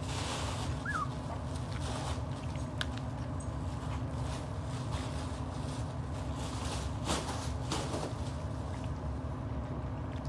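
Miniature pinscher puppies eating dry kibble from a bowl, with scattered clicks and crunches. One puppy gives a single short, high, falling squeak about a second in, over a steady low background hum.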